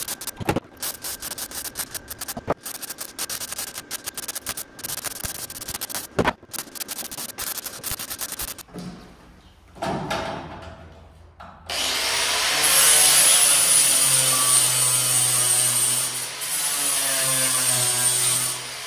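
Bodywork on a steel patch panel. First comes the irregular crackle of MIG welding in short runs. From about twelve seconds in, an angle grinder runs loud and steady with a high whine, dressing the welds flush.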